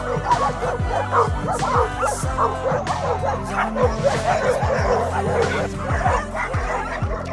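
Several dogs barking and yipping in quick, overlapping calls, over background music.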